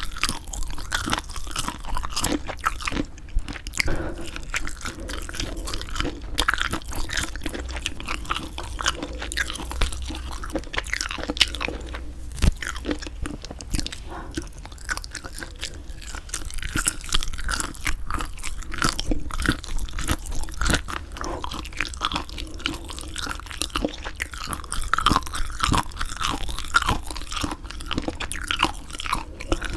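Close-miked chewing of semi-dried squid, with continuous irregular crunching, biting and wet mouth sounds.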